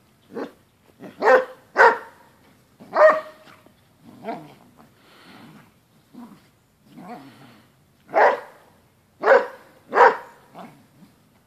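Basset hound barking in short, loud, separate barks during a tussle with another dog, with quieter growling in a lull in the middle.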